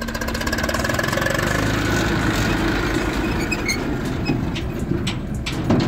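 Eicher tractor's diesel engine running at raised revs as the tractor drives, a steady dense sound that grows louder in the first second. A single sharp knock comes near the end.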